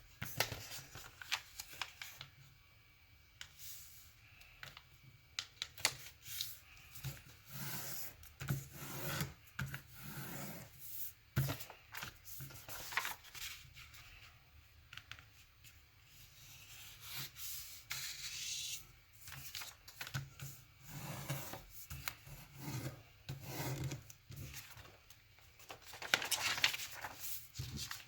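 A sheet of paper being folded by hand, with irregular rustling and sliding, and sharp crackles as folds are creased flat.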